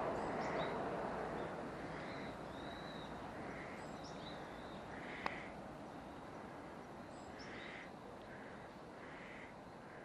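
Birds calling in the trees, short calls repeated every second or two with thin high chirps among them, over a low rumble of distant city noise that fades away during the first few seconds. A single sharp click about five seconds in.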